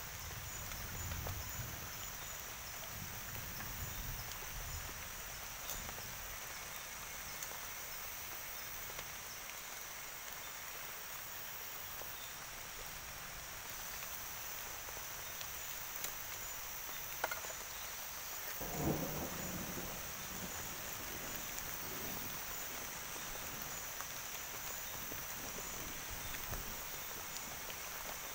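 Forest night ambience after heavy rain: a steady high chirring of crickets and other insects over a wash of light rain, with a few faint clicks and one short low thump about two-thirds of the way through.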